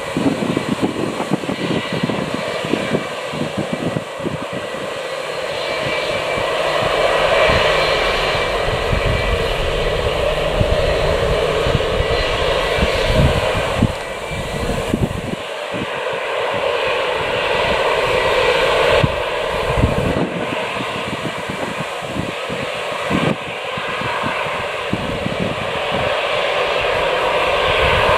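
Jet airliner engines, a loud steady rushing noise with thin whining tones. It swells and eases several times.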